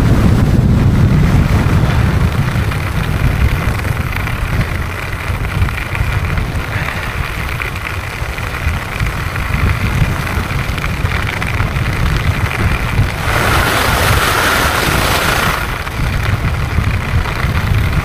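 Wind buffeting a helmet-mounted camera's microphone during a fast ski descent, a steady low rumble. About thirteen seconds in, a hiss of skis scraping over the snow lasts about two seconds.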